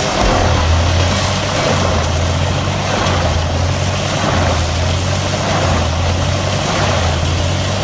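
A large engine on heavy machinery running steadily, with a strong low hum and a broad mechanical noise over it.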